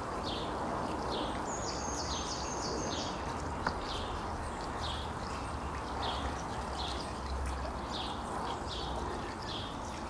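Wind rustling through a tree's leaves as a steady hiss, while a bird gives short chirps about every two-thirds of a second and a quick high trill of about six notes sounds between about one and a half and three seconds in. A single sharp click a little before four seconds in.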